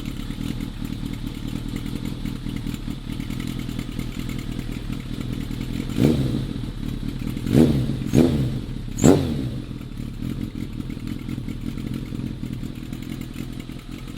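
Motorcycle engine idling steadily through a Sansei aftermarket silencer, with four quick throttle blips between about six and nine seconds in, each note rising and falling back to idle.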